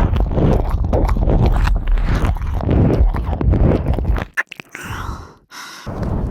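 Close-up ASMR mouth sounds of ear licking and 'ear eating': wet smacks, licks and chewing-like crackles right on the microphone. They break off for about a second and a half a little past the middle, then resume.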